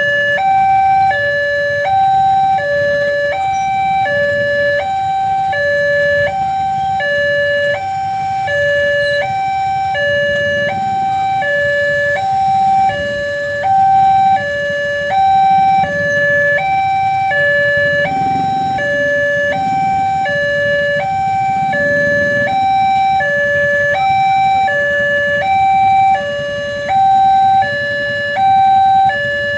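Railway level-crossing warning alarm sounding its two-tone electronic signal, alternating evenly between a higher and a lower tone about once a second, warning that a train is approaching. A low rumble runs underneath, strongest in the middle.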